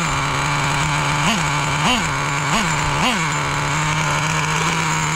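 Traxxas T-Maxx 3.3 nitro engine idling, blipped up and back down four or five times in quick succession, then settling into a steady idle. The engine is running fine.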